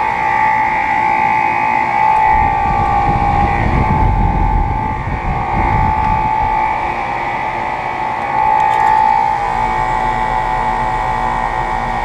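Outdoor York central air conditioner condensing units running: a steady machine hum with a high steady whine over the rush of the condenser fan. A low rumble swells in for a few seconds about two seconds in.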